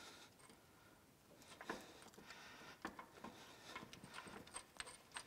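Faint, scattered metal clicks and ticks as a bolt is started by hand to hang a shaft bearing up under a cast-iron machine bed, coming more often in the second half.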